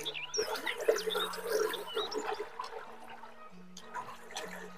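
Wet, close-up chewing and mouth sounds of someone eating rice and raw greens, loudest in the first couple of seconds, with a few bird chirps. Background music with a slow melody of held low notes plays throughout.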